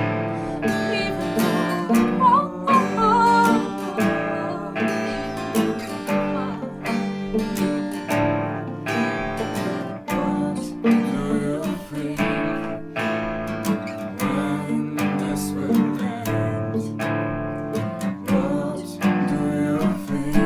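Small band playing live into a single microphone: acoustic rhythm guitar strummed steadily, with a sustained melody line gliding above it.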